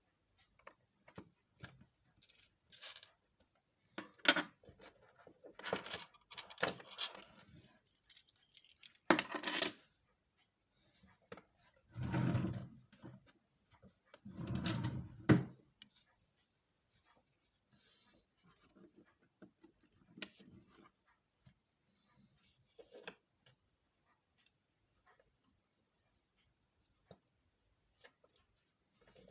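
Small metal clicks, taps and scrapes of watchmaker's tools and tiny parts as an Orient Three Star watch is taken apart. Two longer, duller rustling noises come around the middle.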